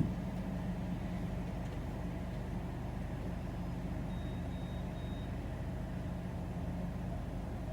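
Car engine idling, a steady low hum. Three short high beeps sound about four seconds in.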